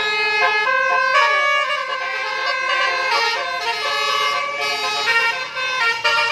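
Tour bus's multi-trumpet basuri 'telolet' air horn, worked by hand, playing a tune: several horn tones sound together and step from note to note every fraction of a second.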